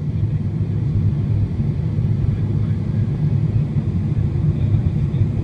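Steady low rumble of cabin noise inside a Boeing 777-300ER on its descent to land: the drone of its GE90 engines mixed with air rushing past the fuselage.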